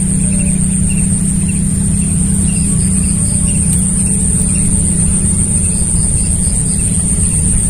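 A small engine running steadily, a low even hum with a steady high whine above it.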